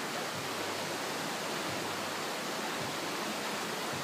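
Steady rushing of a shallow stream flowing among rocks.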